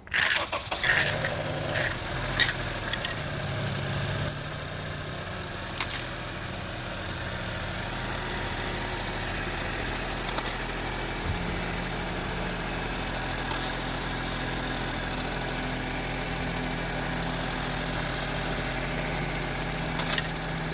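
Honda CR-V's 2.4-litre four-cylinder engine starting, then idling; the engine has a rough, hunting idle, but here the rpm holds fairly steady.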